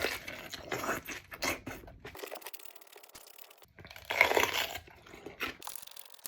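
Crunching bites and chewing of a raw whole pepper close to the microphone, with a louder crunchy bite about four seconds in.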